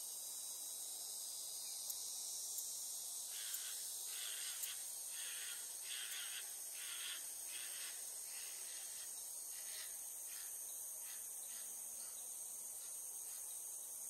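Steady high drone of cicadas, with a bird giving a series of harsh calls, about two a second, starting a few seconds in and thinning out near the end.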